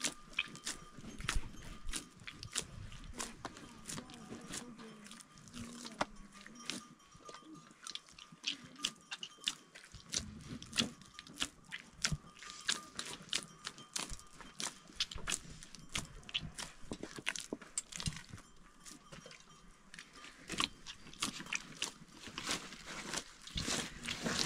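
Bread dough being kneaded by hand in a metal basin: many short, irregular squishing and slapping sounds as the dough is pressed and folded.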